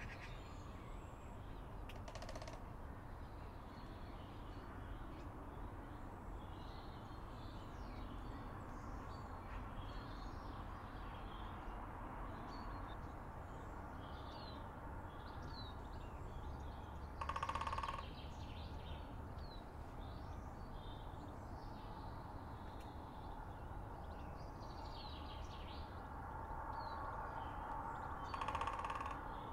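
Small birds chirping faintly over a steady low rumble, with three short, harsh, rasping calls: one about two seconds in, the loudest just past the middle, and another near the end.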